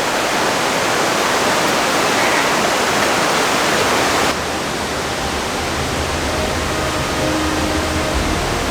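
Rushing of Gordale Scar's waterfall, running heavy after recent rain, as a loud, steady wash of falling water. About four seconds in it drops suddenly to a quieter, duller rush, and soft held musical notes come in underneath.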